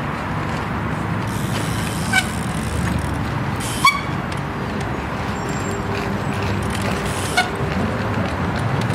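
City street noise around a tram at its stop: a steady low rumble with a faint steady whine in the middle, broken by three sharp ringing metallic knocks about two, four and seven seconds in.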